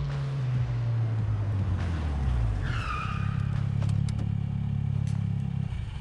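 A car engine running down as the car slows, its note falling, then a short tire squeal as it pulls up about three seconds in. The engine then idles steadily, with a few light clicks, and shuts off just before the end.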